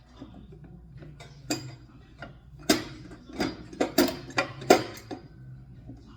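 Metal tools clinking and clanking against the belt sander's drum fastener: about seven sharp, uneven knocks, the loudest about three seconds in and near the end, as a wrench works at a stubborn nut.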